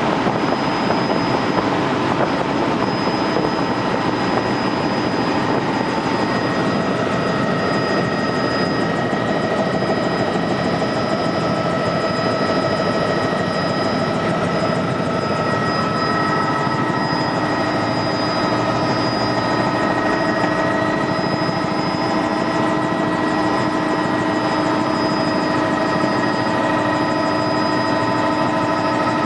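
Helicopter running steadily: a constant rushing drone with a steady high-pitched turbine whine over it.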